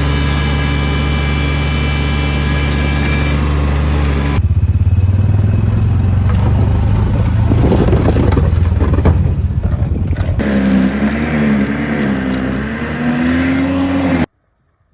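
Engines of snow-clearing machines running in three separate cut-together stretches: a steady engine hum first, a rougher, noisier run from about four seconds in, and from about ten seconds an engine whose pitch wavers up and down. The sound cuts off abruptly near the end.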